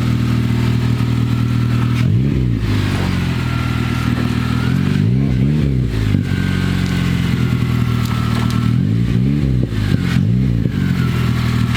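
An engine idling steadily and blipped up and back down several times: once about two seconds in, twice around the middle and two or three times near the end.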